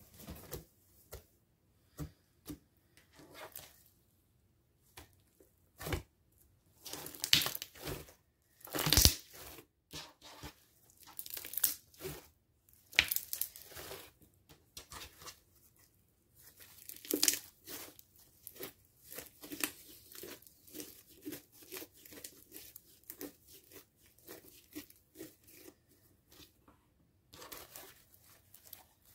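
Hands squeezing, poking and stretching dried bubbly slime made of glue, foam and liquid foam soap. The slime crackles and pops in short irregular bursts as its dried skin and air bubbles break.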